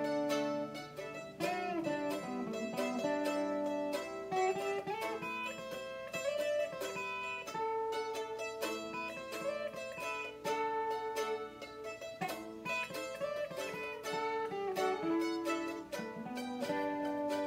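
Instrumental break with no singing: a mandolin picks a quick melody over an acoustic guitar.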